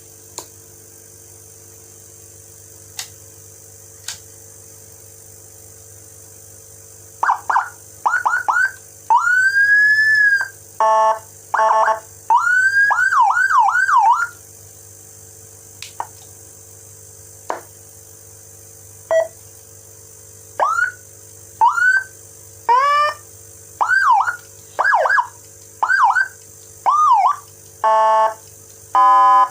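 Electronic siren unit running a Whelen Euro Gamma G2 tone program, sounded in short bursts. After a few clicks come quick rising chirps, one long rise-and-fall wail about ten seconds in, fast warbling yelps, and flat buzzy tones, with pauses between. A steady low hum runs underneath.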